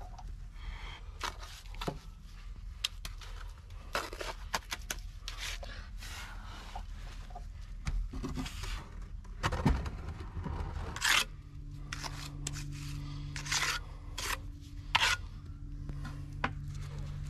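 Concrete blocks being handled and set into a mortar bed: gritty scraping and rubbing of block on block and mortar, with sharp knocks as blocks are placed, loudest about two thirds of the way in. A steady low hum comes in just past halfway.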